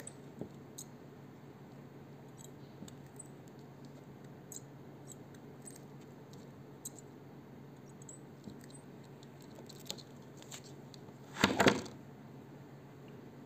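Hands handling thin nylon fishing line: faint scattered clicks and ticks, then a brief louder rustling scrape about eleven and a half seconds in.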